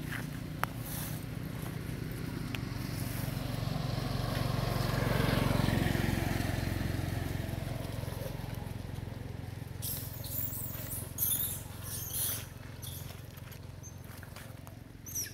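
A motor vehicle passing on the road: its engine hum swells to a peak about five seconds in, then fades away. Later, a few short, sharp high-pitched sounds stand out.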